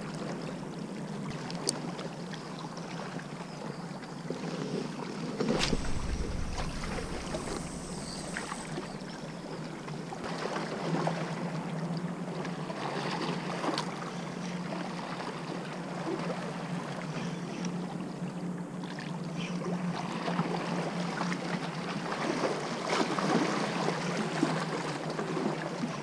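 Sea water lapping at shore rocks with light wind, under a steady low hum that grows stronger about halfway through. A few small clicks and one dull bump about five and a half seconds in.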